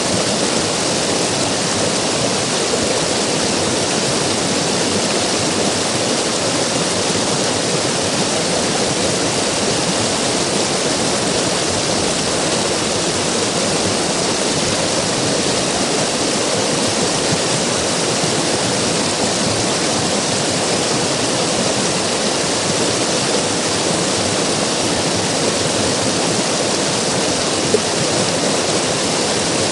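River water flowing and rushing steadily, an even, unbroken sound of moving water.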